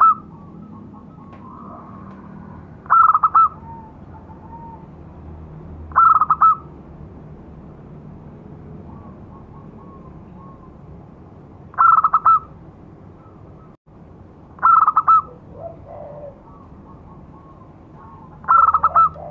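Zebra dove (perkutut) cooing its lure call: short phrases of quick staccato coos, repeated about every three seconds with a longer pause in the middle. Fainter cooing notes sound between the phrases.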